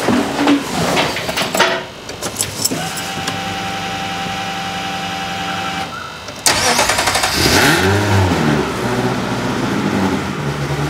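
Ferrari engine in an Alfa Romeo 105: a few seconds of steady whine, then the engine fires about six and a half seconds in, revs up and down once and settles into a steady idle. It runs with its exhaust valves closed, much quieter than with them open.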